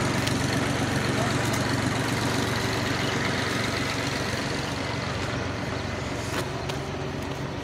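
A steady engine hum, as of a vehicle idling, slowly fading.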